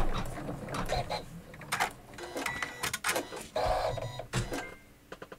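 Irregular rustling and clicking as scraps of quilt batting are sorted through by hand, dying away after about four and a half seconds.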